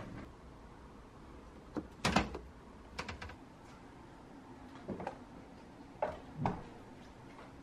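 Short knocks and clunks from a refrigerator door and a plastic food container being handled, about six in all, the loudest about two seconds in.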